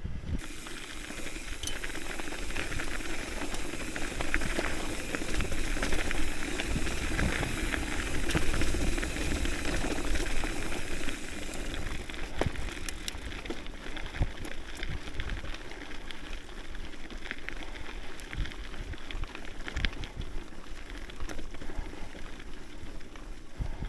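Haro Saguaro hardtail mountain bike rolling fast down a dirt trail: a steady rushing tyre-and-air noise with scattered clicks and rattles from the bike over the bumps.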